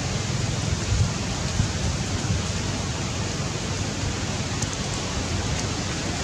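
Steady hiss with an uneven low rumble of wind buffeting the microphone, a little stronger in the first second.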